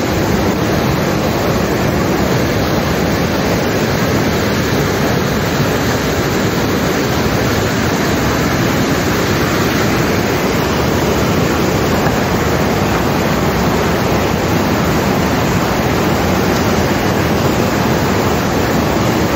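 Loud, steady rushing of water with no breaks, and no separate knife strokes heard over it.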